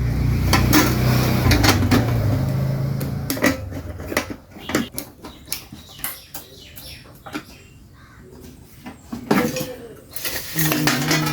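Metal clinks and knocks of a rice cooker's parts and casing being fitted back together, scattered irregularly with a louder cluster near the end. A low steady hum runs under the first three seconds or so.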